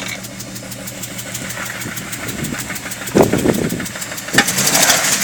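BMW M52 2.8-litre straight-six running rough with a rhythmic knock, about six ticks a second. It is misfiring, which the men put down to two spark plugs not firing. About three seconds in a louder surge of engine noise, and the sound grows louder again near the end.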